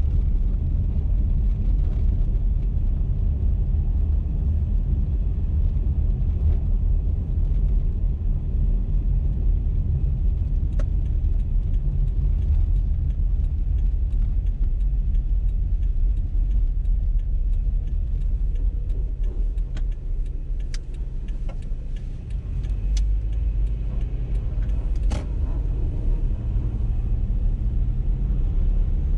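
Car driving along a highway: a steady low rumble of road and engine noise. It eases briefly a little past halfway, and several short clicks and ticks come in the second half.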